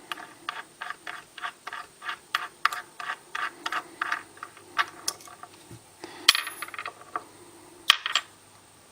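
Small metal parts of a Lockwood key-in-knob lock cylinder clicking evenly, about three or four times a second, as a part is worked off during disassembly; this gives way to a few sharper metallic clinks, one of them ringing.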